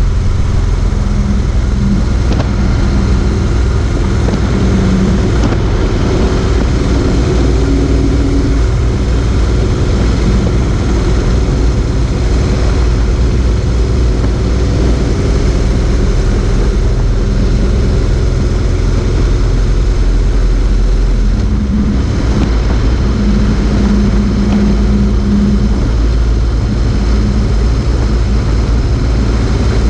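Motorcycle engine running at a steady cruise, mixed with the rush of wind and road noise on a camera mounted low near the front wheel.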